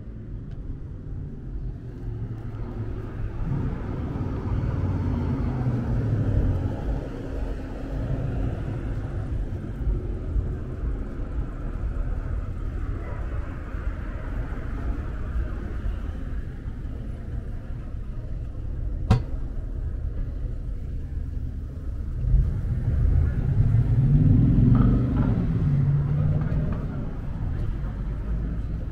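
Street traffic: motor vehicles running and passing, their engine rumble swelling about five seconds in and again near the end, the later one with a shifting engine pitch. A single sharp click about two-thirds of the way through.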